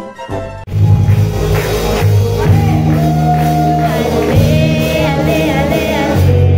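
Live gospel worship song over a loud band with heavy bass: a woman sings the melody into a handheld microphone through a sound system. The song comes in abruptly about a second in, after a brief snatch of different music.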